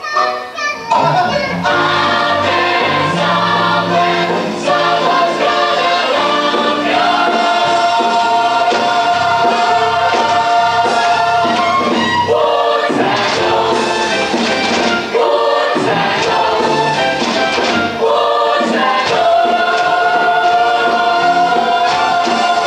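Musical-theatre chorus singing with instrumental accompaniment, holding long sustained notes.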